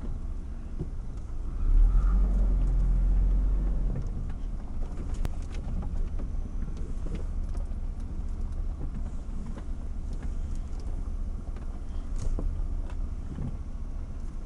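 Chevrolet ZR2 off-road truck crawling over a rock pile, heard from inside the cab: the engine runs low and steady, surging louder for a couple of seconds about two seconds in. Scattered short knocks and clatter come through the body as it moves over the rocks.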